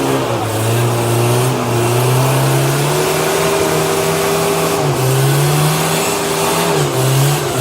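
Suzuki Samurai's 1.3-litre four-cylinder engine running at held revs, its pitch rising about a second in and dipping briefly near five and seven seconds in as the throttle is worked.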